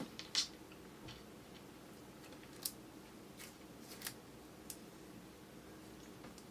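Chewing of chewy kyoho grape jelly: a handful of short, wet, sticky mouth clicks spread across the few seconds, the loudest about half a second in. A steady low hum from the camera's built-in microphone lies under them.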